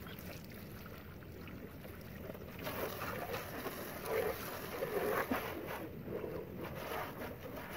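Water from a garden hose spraying and splattering on a car's body and windows, a steady hiss that gets louder from about three seconds in as the spray goes onto the door and roof.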